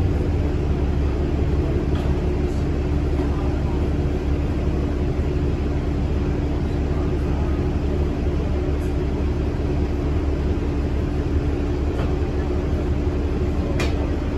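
Cabin noise inside a New Flyer D40LF diesel city bus underway: a steady low engine and road rumble with a steady hum over it. A brief sharp click or rattle sounds near the end.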